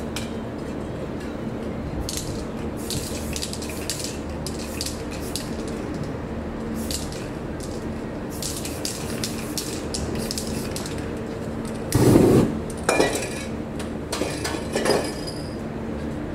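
Aerosol spray paint can hissing in a series of short bursts over the canvas. About twelve seconds in there is a loud whoosh as the paint is set alight, followed by two smaller flare-ups.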